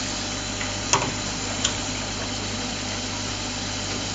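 Wood-plastic (WPC) extrusion line machinery running with a steady hum. Two short sharp clicks come about a second in and again shortly after.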